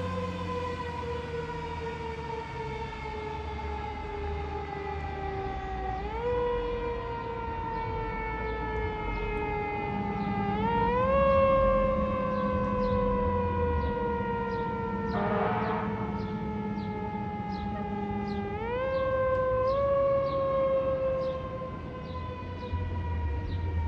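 Fire engine's mechanical siren wailing as the truck pulls away: a long tone that slowly coasts down in pitch and is wound back up three times, each time sliding down again. A brief rasping burst sounds about halfway through.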